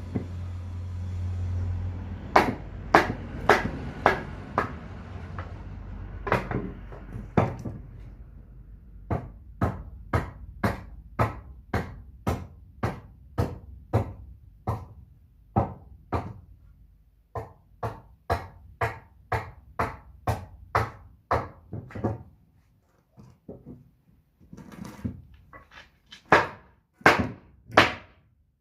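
Repeated hammering on wood: sharp, evenly paced strikes, about one and a half a second, with a low hum under the first few seconds. The blows pause briefly past the middle and resume, the loudest coming near the end.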